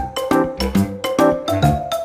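Upbeat background music with a bouncy beat, plucked or mallet-like notes over a bass line.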